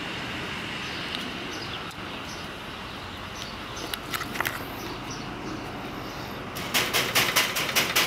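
Rapid knocking on a black sheet-metal security gate: about nine sharp, loud raps in just over a second near the end, over a steady outdoor background hum.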